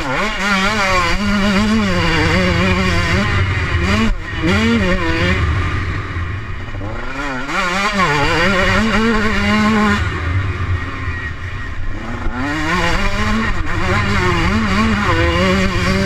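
125 cc two-stroke Husqvarna motocross bike's engine revving hard through the gears, its pitch climbing and falling again and again with the throttle, with a few short lifts off the throttle. Heard from the rider's helmet.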